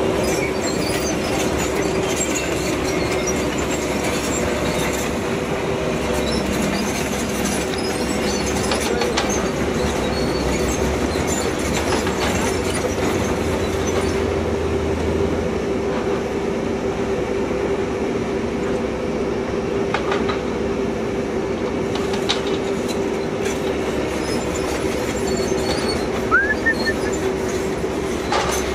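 Tracked excavators working rock: a steady diesel engine and hydraulic hum under a continuous rattling clatter of stone and steel, with a few sharp knocks in the second half.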